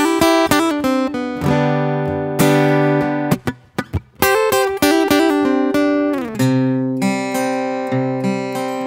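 Furch Little Jane LJ10-CM travel acoustic guitar played solo, with ringing notes and chord changes. It is heard first through its LR Baggs piezo pickup and preamp, and by the end through a condenser microphone. Around the middle come a few short, choppy strikes with brief silences between them.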